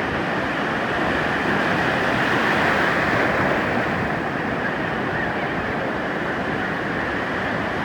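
Ocean surf washing onto a beach: a steady, unbroken wash of wave noise.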